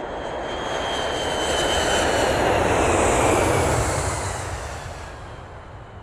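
Jet airplane passing by: a rushing roar swells to its loudest about halfway through and then fades away, with a high whine that slides down in pitch as it goes.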